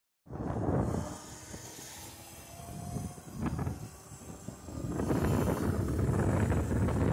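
Wind buffeting the microphone and road rumble while riding a 96 V brushless electric motorcycle conversion. The noise eases in the middle, where a faint motor whine comes through, and swells again from about five seconds in.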